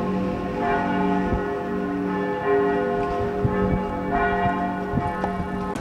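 Church bells ringing, several bells sounding together. Each stroke rings on in long, overlapping tones, with new strokes every second or two.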